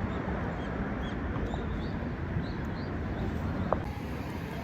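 Several short, high bird chirps over a steady low background rumble.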